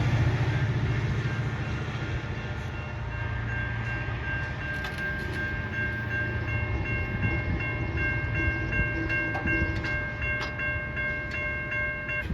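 GO Transit commuter train's rumble and wheel noise fading as it moves away, while the crossing's warning bell keeps ringing in a steady run of evenly spaced dings.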